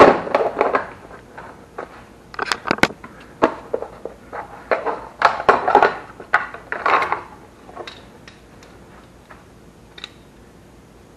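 Metal hand tools clinking and clattering as a hand rummages through a toolbox drawer: a busy run of sharp knocks and rattles for the first seven seconds or so, then only a few faint ticks.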